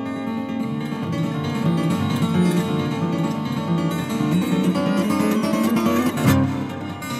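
Recorded jazz music: an acoustic guitar plays quick runs of plucked notes and strummed chords.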